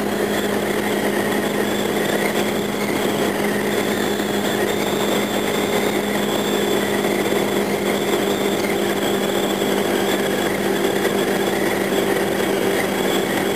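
Kawasaki Ninja 250's parallel-twin engine running at a steady cruise, its pitch holding level, as heard from a helmet camera.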